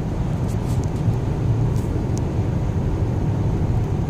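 Steady low drone of a Lexus RX heard from inside its cabin while driving along a straight: engine, tyre and wind noise together.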